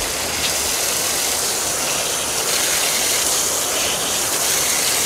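Water running steadily from an outdoor tap into a container below.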